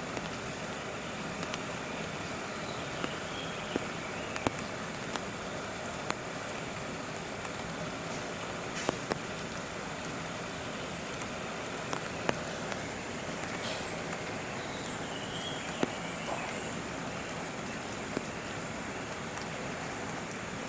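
Steady background hiss with sharp clicks and taps scattered through it, and a few faint high chirps about two-thirds of the way in.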